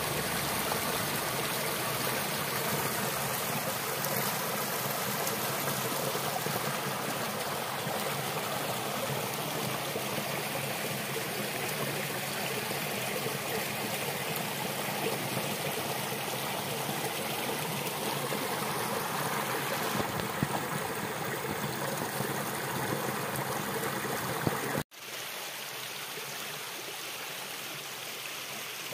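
Mountain stream rushing over rocks, a steady rush of water. About 25 s in it cuts off abruptly and a slightly quieter, steady rush carries on.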